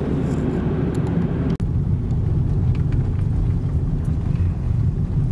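Car engine and tyre rumble heard from inside the cabin while driving along a dirt forest road, steady and low, with a brief break about one and a half seconds in.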